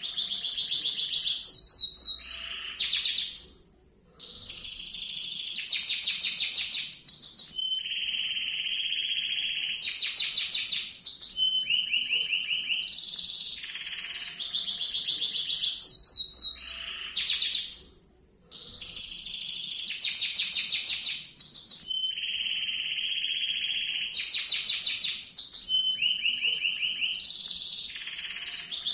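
Yellow domestic canary singing a long rolling song: fast high trills alternating with long steady lower rolls, broken by a short pause about four seconds in and again near eighteen seconds. The same song sequence comes round again about every fourteen seconds.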